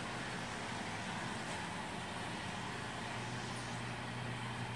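Steady low hum with an even hiss, unchanging throughout: the room tone of running electrical equipment.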